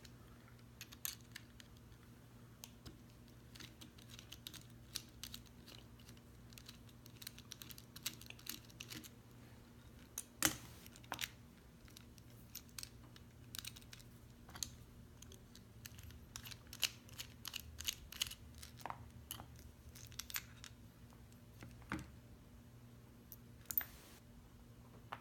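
Irregular small metal clicks and taps from an American Lock 1205 padlock being handled and taken apart after picking, the sharpest click about ten seconds in, over a faint steady hum.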